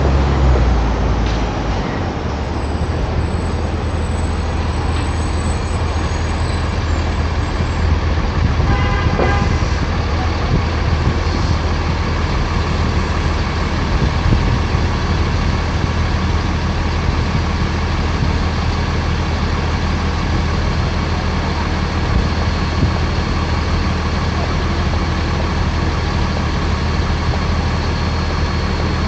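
Steady low hum and rumble of a car driving in city traffic, with a short horn toot about nine seconds in.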